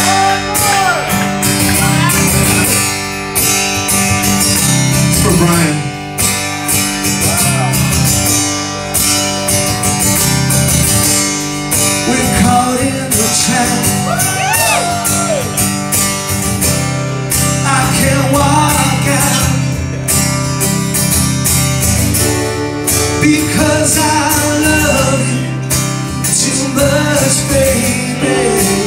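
Live rock band playing a song: drum kit, electric and acoustic guitars, bass and keyboards, with a sung vocal line that comes and goes.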